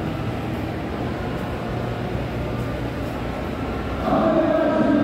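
Steady low rumble of background noise. About four seconds in, music with held, choir-like tones comes in louder over it.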